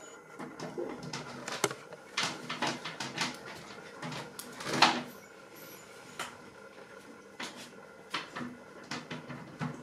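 Irregular crinkling and rustling of a paper sack and a fabric bag as a puppy noses and rummages in them, with the sharpest rustle about five seconds in.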